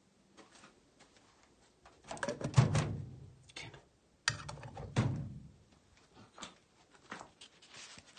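Knocks, clatter and scraping from things being handled and moved, in two bursts: the first about two seconds in, the second a little after four seconds. Scattered faint clicks follow.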